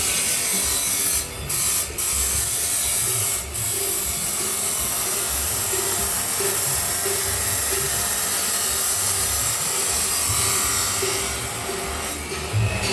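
Grinder cutting stainless steel pipe: a steady, high, hissing grind. It breaks off briefly three times in the first few seconds and eases off near the end.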